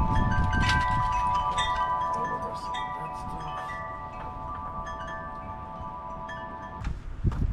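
Chimes ringing, several overlapping notes held with scattered higher dings. The ringing cuts off suddenly near the end, giving way to knocking and rustling.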